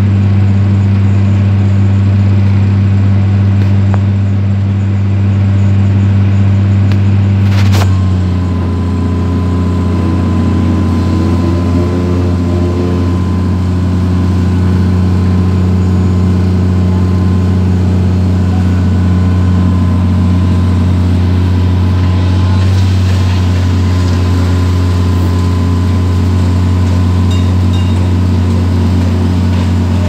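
Hydraulic excavator's diesel engine running steadily, heard from inside the operator's cab. About eight seconds in there is a sharp click, the engine note shifts and a faint steady whine joins it.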